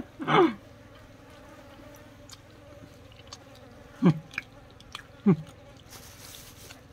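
A fly buzzing steadily around the food, interrupted by a few short, sharp sounds; two of them fall in pitch, about four and five seconds in.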